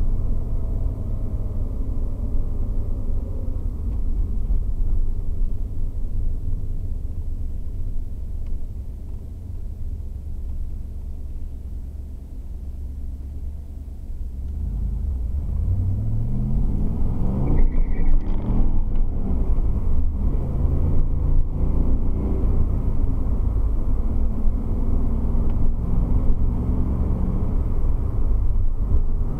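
1989 Camaro IROC-Z's V8 heard from inside the cabin, a low steady drone that eases off to a quieter run. About 15 seconds in it revs up through a gear, with a brief break at a gear change near 18 seconds, then settles into a steady cruising drone.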